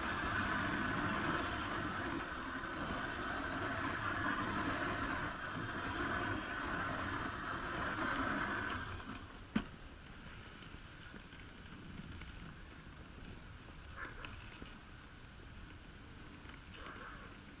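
Dog sled runners hissing and scraping over snow-covered lake ice as the team pulls the sled along. The sound is loud for about the first nine seconds, then drops much quieter, with a single sharp knock just after the drop and a couple of faint knocks later.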